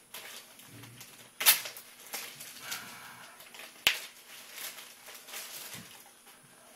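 Tissue paper rustling and crinkling as packaging is pulled apart by hand. There is a loud crackle about a second and a half in and a single sharp click about four seconds in.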